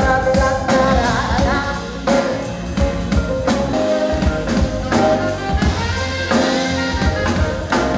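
Live band music with a woman singing, jazz-style, over a steady beat.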